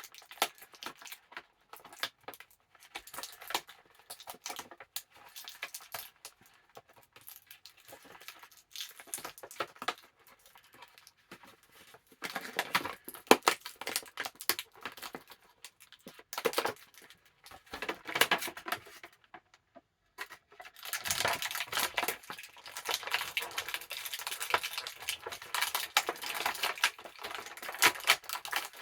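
Action figure packaging being opened by hand: plastic and cardboard crinkling, tearing and clicking in irregular bursts, busier and louder about halfway through and heaviest over the last third.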